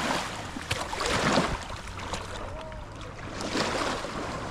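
Sea water washing and splashing in surges, three louder swells of noise over a steady wash.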